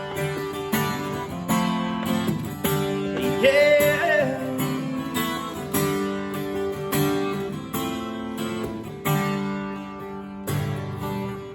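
Acoustic guitar strummed in a country song's outro, with a brief wordless sung note about three and a half seconds in. The last chord is struck near the end and rings out.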